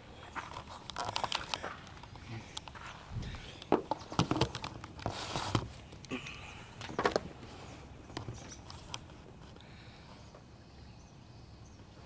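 Camera handling noise: scattered knocks, scrapes and a few dull thumps as the camera is moved and set down on a car roof, settling to quiet outdoor background near the end.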